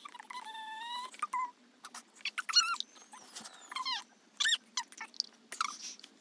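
High-pitched, squeaky chattering of voices played back sped up, as in a time-lapse: short gliding squeals in quick succession.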